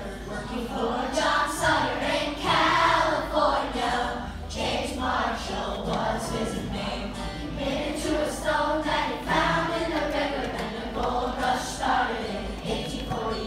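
A group of children singing a gold-rush song together in chorus, with musical accompaniment.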